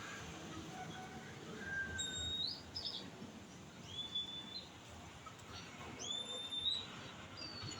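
A few short, high whistled bird calls, each rising quickly and then holding its pitch, spaced a second or two apart.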